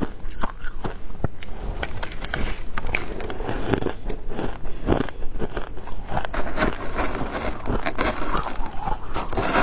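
A person biting and chewing shaved ice up close, with dense, irregular crunching and crackling throughout.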